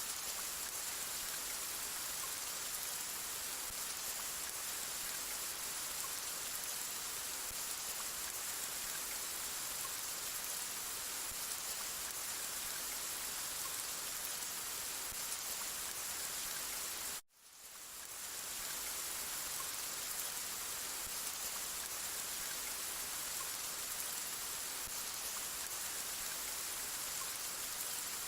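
Steady rain, an even hiss. About 17 seconds in it cuts out for an instant and swells back over about a second.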